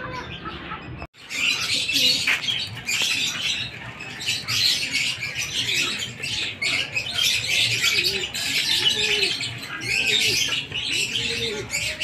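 Racing pigeons in a loft, cooing in repeated rising-and-falling coos about once a second in the second half, over a constant busy haze of higher bird sounds.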